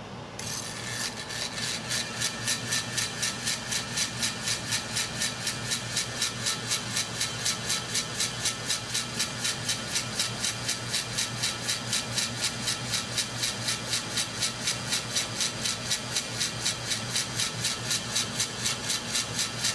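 1981 Hunter Original ceiling fan motor running with only the blade brackets fitted. It starts up about a second in and settles into a steady hum with an even whooshing pulse about three times a second as the brackets turn.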